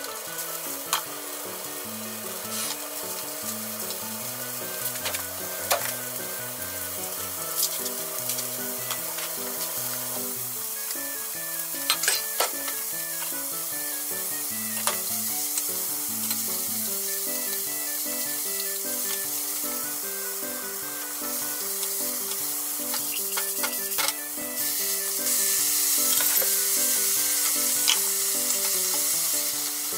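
Sliced onion and carrot sizzling as they stir-fry in an oiled frying pan, stirred with wooden chopsticks that click against the pan now and then; the sizzle grows louder near the end. Soft background music with a slow melody runs underneath.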